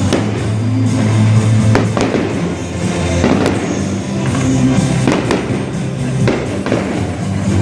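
Fireworks going off as a string of sharp bangs at uneven intervals, over loud music with a steady bass line.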